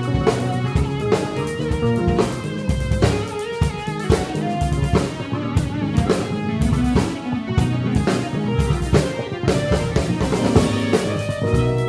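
Live band playing: a drum kit with kick, snare and rimshots under two electric basses playing busy lines.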